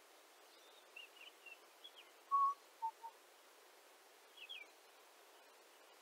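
Northern mockingbird singing: a string of short, varied phrases, with high chirps, then a clear whistled note about two seconds in, the loudest, then two short lower notes and another pair of quick chirps near the end. A faint steady hiss lies under it.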